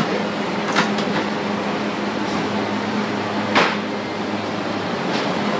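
Steady drone of ventilation or refrigeration machinery with a constant low hum, broken by a few short knocks and clacks, the sharpest about three and a half seconds in.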